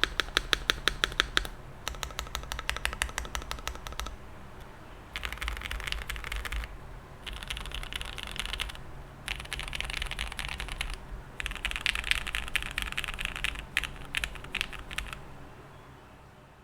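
Typing on an ai03 Vega mechanical keyboard with lubed Gateron Lion switches on an aluminium plate and JTK Night Sakura keycaps. It starts with rapid, evenly spaced key presses, then comes in several bursts of fast typing with short pauses between them, fading out near the end.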